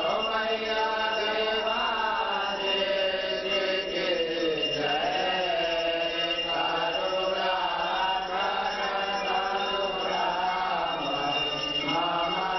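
A group of men chanting a Hindu aarti hymn together, with sustained, bending sung notes.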